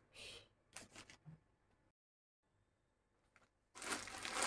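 A few soft rustles of clothing being handled, then, near the end, loud crinkling of plastic packaging.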